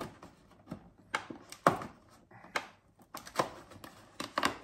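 Cardboard advent calendar being opened and handled by hand: a string of irregular sharp clicks, taps and rustles of cardboard and packaging.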